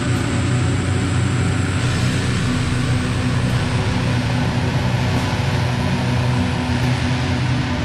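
Funeral doom metal playing: a dense, heavily distorted low drone with sustained low notes held steadily throughout and no clear beat.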